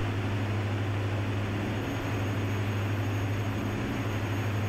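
Diamond DA-42NG's twin Austro turbodiesel engines and propellers running in flight: a steady, even drone with a strong low hum under a hiss.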